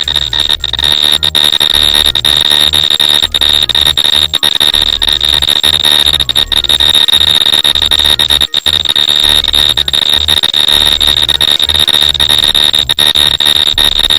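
Synthesized electric-arc sound effect: a continuous, loud buzzing crackle of dense irregular snaps over a steady high-pitched whine and a jittering low hum, imitating current arcing.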